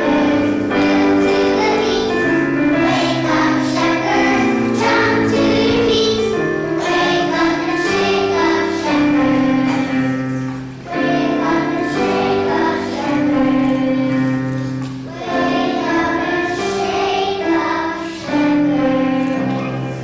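Children's choir singing a Christmas song with musical accompaniment.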